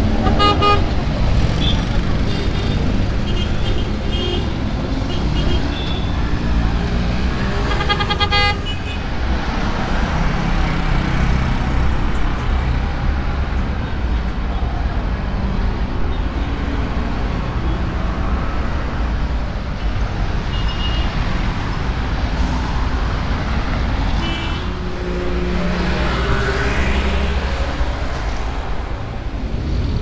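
Busy street traffic of motor tuk-tuks and cars: a steady engine rumble with horns honking several times, near the start, about eight seconds in, and again around twenty-five seconds in.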